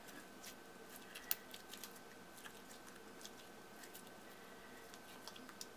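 Faint, scattered sticky clicks and pops of a thick, putty-like clear slime being stretched and squeezed by hand, one sharper click about a second in.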